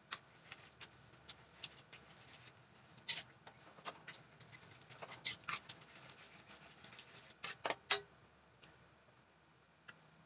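Metal spatula scraping and tapping against a metal wok while stirring a bubbling sauce: irregular sharp clicks and scrapes, with the loudest few about three-quarters of the way through.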